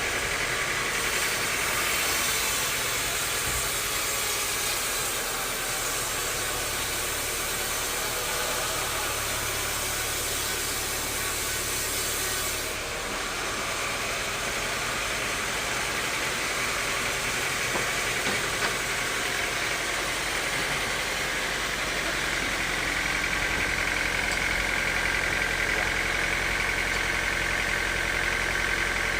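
Sawmill machinery running steadily with a continuous mechanical drone and a whine. A high hiss in the sound drops away a little before halfway through.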